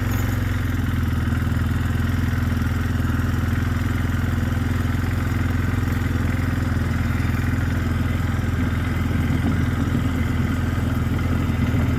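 A motor vehicle engine running steadily at raised revs, loud and close. It has just come up from a pulsing idle.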